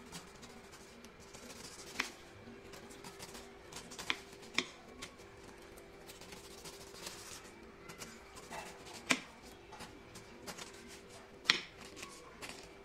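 A long kitchen knife slicing the rind off a whole pineapple on a bamboo cutting board: scraping cuts through the tough skin, with a handful of sharp knocks where the blade strikes the board, the loudest near the end.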